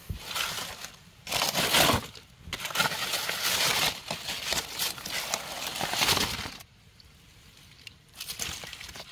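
Dry dead leaves and plant debris rustling and crackling as they are pulled aside by hand, in several bursts, with a quieter lull about two-thirds of the way through.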